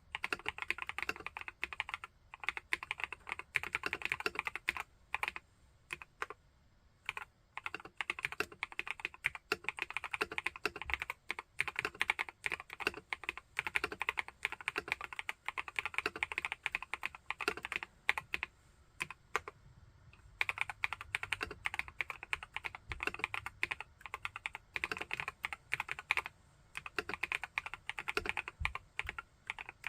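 Steady fast typing on an Epomaker Brick 87 mechanical keyboard with Epomaker Wisteria linear switches: quick runs of keystrokes, broken by short pauses about a fifth of the way in and again a little past the middle.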